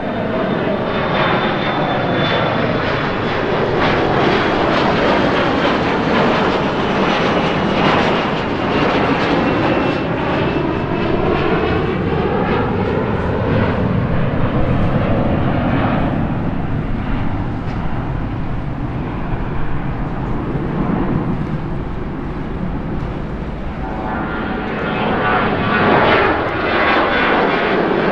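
Embraer E175's twin GE CF34 turbofans at takeoff power as the jet climbs overhead: a steady jet roar with whining tones that slide down in pitch as it passes and draws away. Near the end a Boeing 737-900ER's CFM56 engines take over, loud on its climb-out after takeoff.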